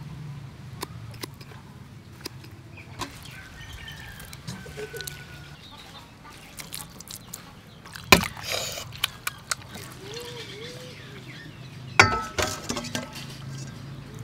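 Kitchen handling sounds: kitchen scissors snipping through octopus, then two sharp clinks of a utensil against a metal pot, about 8 and 12 seconds in, each followed by clattering and liquid being stirred. Faint birdsong and a steady low hum sit underneath.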